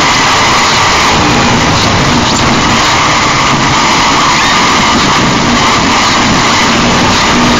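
Harsh noise music: a loud, unbroken wall of distorted static that holds steady, with no beat and no voice.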